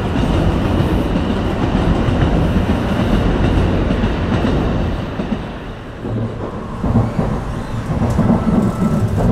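Train running, heard from inside the passenger carriage: a steady low rumble with rail clatter, easing for a moment about five seconds in, then picking up again.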